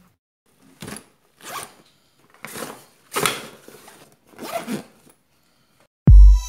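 About five short rasping swishes, each well under a second, separated by silence, like a zipper or plastic packaging being handled. About six seconds in, electronic music with heavy bass beats cuts in loudly.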